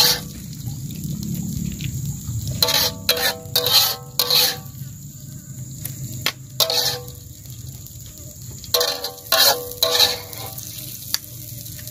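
Metal spatula scraping and knocking against a metal wok while scooping out chili sambal: two runs of short strokes with a metallic ring, about three seconds in and again near nine seconds, with a few single strokes between. A steady low rumble runs underneath.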